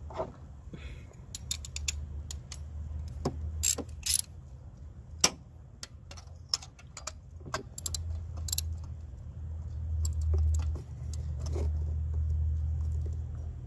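Scattered metallic clicks and clinks of a 5/8 spark plug socket on an extension being fitted down a coil well and worked with a ratchet. A low rumble runs under the second half.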